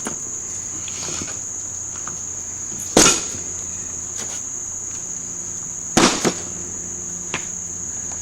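Two heavy 8-pound sledgehammer blows, about three seconds apart, smashing porcelain pieces of a toilet. The second blow is followed by a smaller crunch. A steady high chirring of crickets runs underneath.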